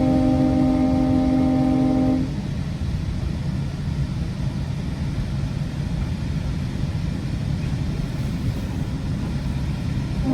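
GO Transit commuter train's air horn sounding from on board: one blast of about two seconds at the start, and a second blast beginning near the end, over the steady rumble of the train running.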